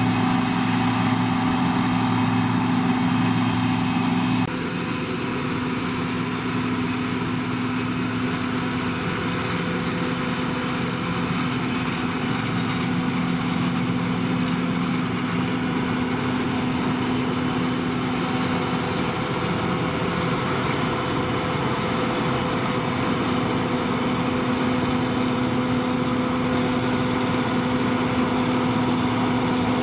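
John Deere 2258 combine harvester running steadily with a constant engine hum. About four seconds in the sound changes abruptly and turns a little quieter.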